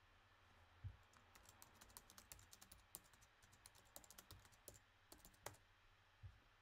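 Faint typing on a computer keyboard: quick, irregular runs of key clicks lasting about four seconds, with a soft low thump near the start and another near the end.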